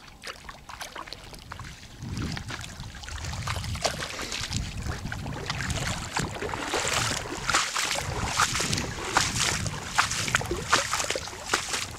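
Perch thrashing and splashing at the surface of shallow lake water, with a run of short, sharp splashes. A low wind rumble on the microphone sets in about two seconds in.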